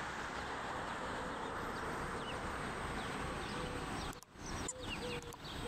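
Outdoor background: a steady rushing noise with faint bird chirps, and a few short calls of one held pitch in the second half.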